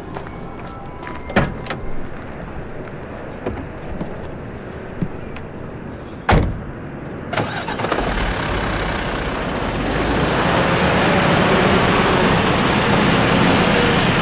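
Car transporter truck: a few knocks early on, then a cab door slams shut about six seconds in. The engine starts soon after and runs, growing louder as the truck moves off.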